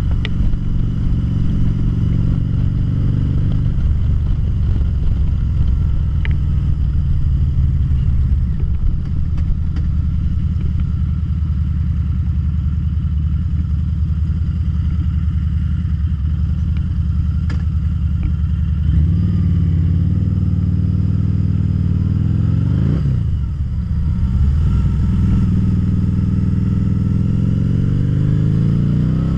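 2013 Harley-Davidson V-Rod Muscle's liquid-cooled V-twin running under way. It holds low and even through the middle, picks up about two-thirds of the way in, dips sharply and climbs again soon after, and revs up again near the end.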